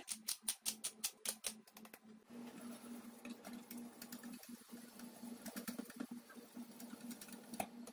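A pepper grinder turned over the pan makes a quick run of clicks for about two seconds. Then a wire whisk stirs thickening béchamel sauce in a stainless steel saucepan, scraping and ticking faintly against the pan.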